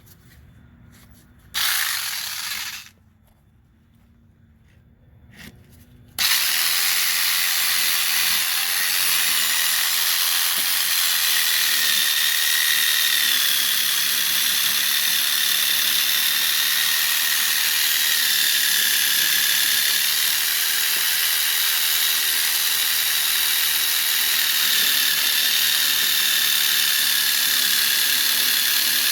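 Electric power saw cutting out an old metal leaf-spring bushing casing. It is triggered briefly for about a second, then after a pause runs on in a continuous cut, with a wavering whine over the grinding rasp of blade on metal.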